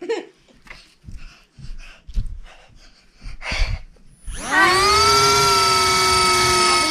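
A few soft knocks and rustles, then about four seconds in a small electric motor in a light-up toy spins up quickly to a steady high whine, which starts to wind down right at the end.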